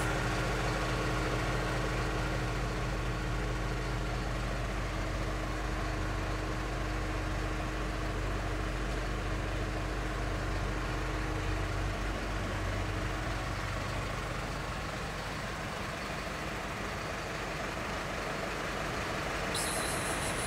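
Steady low engine hum, like a motor idling, which weakens about two-thirds of the way through.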